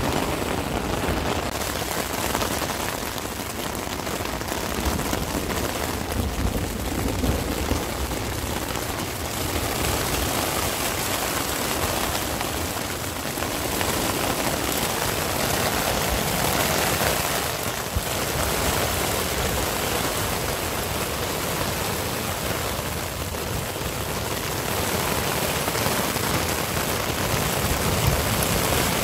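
Storm rain and wind on a tent's flysheet, heard from inside the tent: a steady rush of noise that swells and eases slightly, with a strong low rumble underneath.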